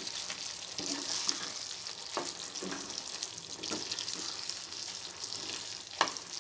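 Paneer pieces being stirred into thick sauce in a hot pan: a steady sizzle, with the spoon knocking against the pan every second or so and hardest near the end.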